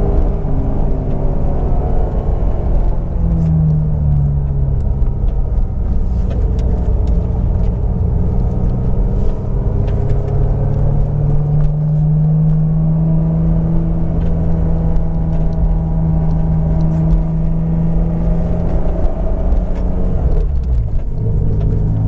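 Turbocharged S52 straight-six of a 1999 BMW Z3 M Coupe running while the car is driven at light, steady throttle, over a low rumble. The engine note rises about three seconds in, holds steady for a long stretch, then drops near the end.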